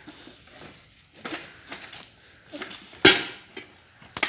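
Metal tools clinking and knocking on a motorcycle's wheel parts while the wheel is being taken off: a string of separate short clanks, the loudest about three seconds in.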